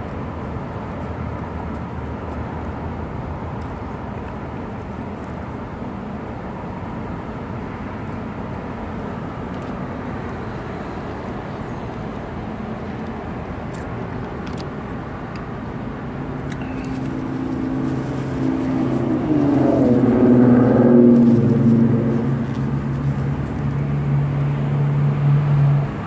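Steady traffic noise. About sixteen seconds in, a motor vehicle's engine comes close and grows louder, peaking a few seconds later. It then holds a steady low hum before stopping abruptly at the very end.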